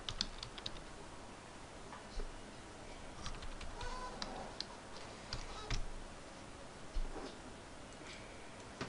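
Faint, scattered computer keyboard keystrokes and mouse clicks, a few of them louder, in the middle and later on.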